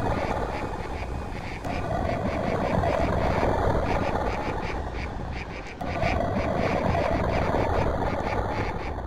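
A dense, continuous chorus of animal calls with a fast pulsing rhythm, changing abruptly about a second and a half in and again near the middle.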